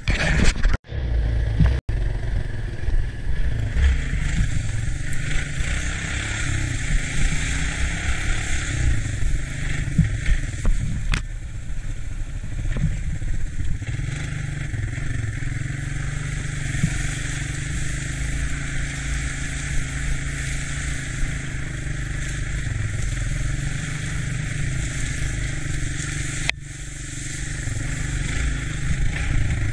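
Engine of a three-wheeled ATC running steadily as it is ridden, with a steady hiss over it. The sound cuts out briefly twice near the start.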